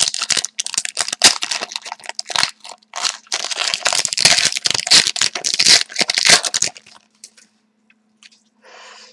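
Hockey card pack wrapper being torn open and crinkled, a dense crackling rustle with sharp crackles that stops about seven seconds in, followed by a brief faint rustle near the end.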